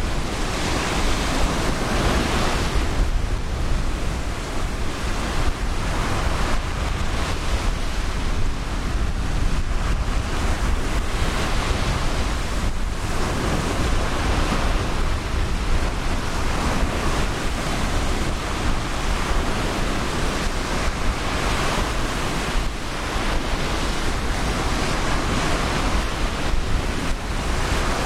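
Ocean surf breaking and washing up a sandy beach, swelling and easing every few seconds, with wind buffeting the microphone as a low rumble underneath.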